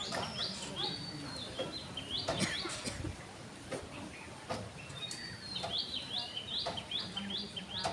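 A small bird chirping in runs of short repeated calls, about three a second, one run at the start and another from about five seconds in, with a few faint clicks between.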